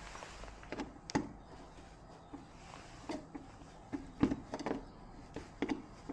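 Irregular light clicks and knocks, about a dozen, uneven in spacing, the sharpest a little after one second and at about four seconds: handling noise of tools and parts at a workbench.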